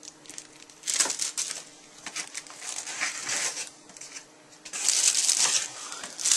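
Packaging crinkling and rustling in short bursts as a camera lens is unpacked from its box, louder and more continuous near the end.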